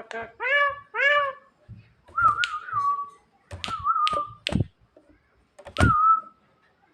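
Whistled back-and-forth with a Javan myna: two arched, rising-then-falling notes in the first second, then three short warbling whistles, each opening with a sharp click.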